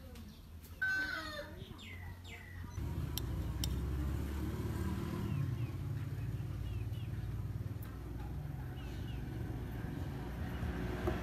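Chickens clucking, with short falling calls in the first few seconds and fainter ones later. From about three seconds in, a steady low hum runs beneath them, and two sharp clicks come close together just after it starts.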